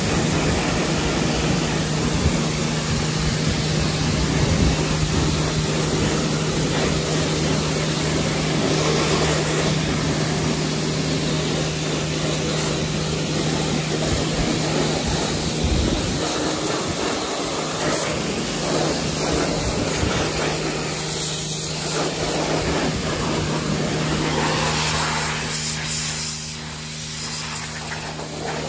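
Pressure washer blasting water and foam over a bare motorcycle frame and wheel onto concrete: a steady hiss of the jet over a constant low hum from the washer's motor, easing slightly near the end.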